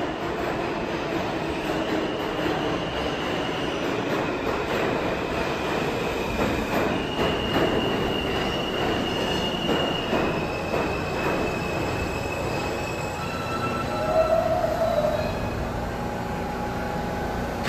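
R160 subway train pulling into the station and slowing to a stop, its wheels rumbling and clattering over the rails with high, steady squeals that shift in pitch as it brakes. A louder short squeal comes near the end as it stops.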